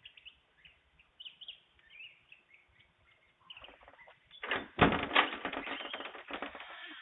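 Small birds chirping in short high calls, then from about four and a half seconds in a loud rough rustling flurry of quick strikes, heard through a doorbell camera's microphone.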